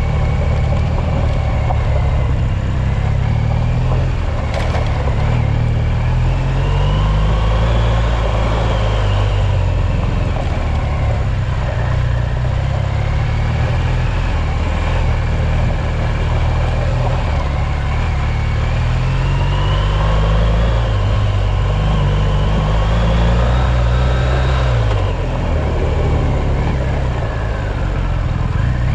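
Engine of an off-road vehicle running on a gravel track, its pitch rising and falling with the throttle, with a higher whine that climbs and falls along with it twice.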